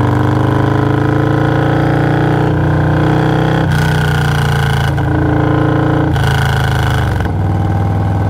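Harley-Davidson Low Rider S's Stage 2 Milwaukee-Eight 117 V-twin engine running under way. Its note climbs over the first couple of seconds, then its tone changes every second or so.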